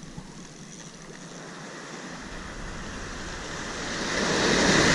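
Surf breaking on a beach, the wash of a wave swelling over the last couple of seconds to its loudest near the end.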